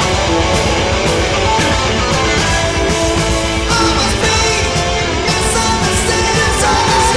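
An 1980s rock band playing a song: electric guitar and bass over a steady drumbeat, with singing.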